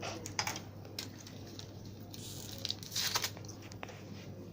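Scattered small clicks and rustling, with a louder rustle about three seconds in, over a low steady hum.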